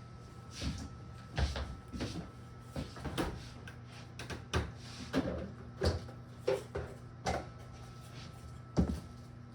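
Hard drive and plastic Synology drive tray being handled: a string of irregular clicks, taps and knocks, about a dozen, as the drive is set into the tray and its screw holes are lined up.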